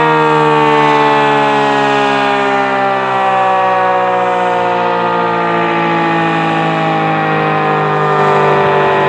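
ACA P-50 outdoor warning siren sounding its alert signal: a loud, steady siren tone, its pitch sagging very slightly, during a routine siren test.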